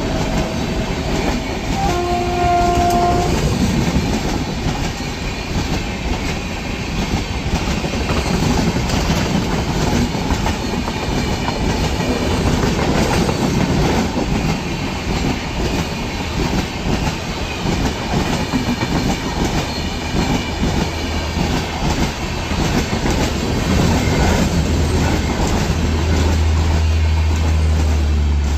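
Train running past with its wheels clattering on the rails. Its horn sounds once, briefly, about two seconds in.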